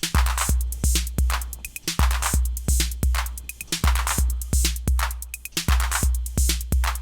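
A TR-808 clone drum machine playing a looped pattern. Long booming 808 bass drum notes sit under a metallic cymbal that rings and fades after each hit, with sharp hi-hat ticks between.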